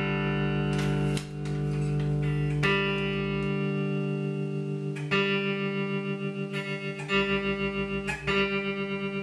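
Homemade electric guitar played through a homebuilt valve (tube) amplifier, a clone of an old Fender amp with a 6V6 output valve. Notes ring out and are picked again about five times. From about three seconds in, the amp's tremolo makes the sound pulse evenly, about five times a second.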